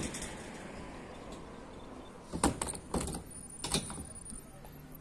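Three sharp knocks and rattles, about half a second apart, from a waveboard and feet on the deck of a wooden mini-ramp as the rider gets up onto it.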